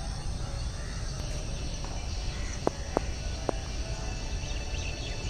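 Outdoor park ambience: a steady low rumble with a haze of background noise, three sharp clicks a little past halfway, and faint high chirping near the end.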